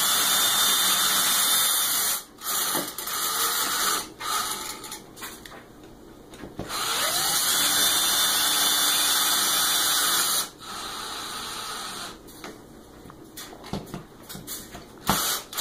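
Cordless drill driving the long mounting screws of a ceiling fan bracket into the overhead electrical box, with a steady motor whine. It runs in three goes, the last about four seconds long, with quieter clicks and handling in between.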